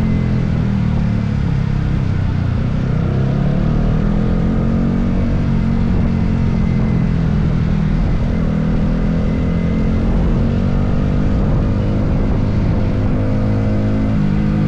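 Yamaha R15M's single-cylinder engine running under way, its note steady but rising and falling a little as the revs change.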